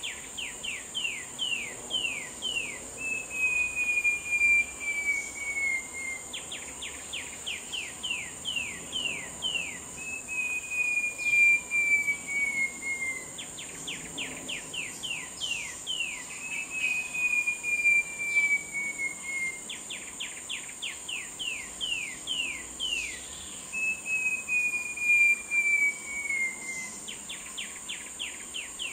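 Short-tailed babbler singing. Each phrase is a quick run of about ten short falling whistles, then one long whistle that slowly slides down in pitch. The phrase repeats about every seven seconds over a steady high insect drone.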